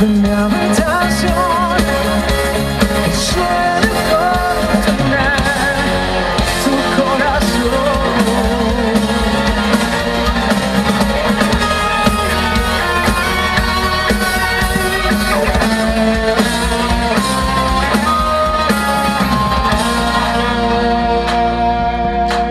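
Live band playing an instrumental passage of a pop ballad, with drum kit, bass and guitar, and a melody line with vibrato over the top.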